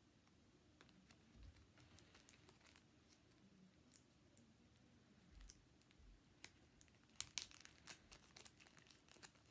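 Faint crinkling and crackling of a bandage's wrapper being handled and opened by hand, with scattered small clicks that grow busier near the end.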